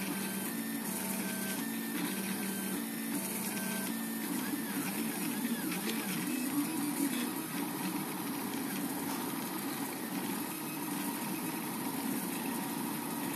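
Portabee RepRap 3D printer printing: its stepper motors sing in short tones that jump from pitch to pitch, with quick rising-and-falling glides as the print head speeds up and slows down, over a steady hiss.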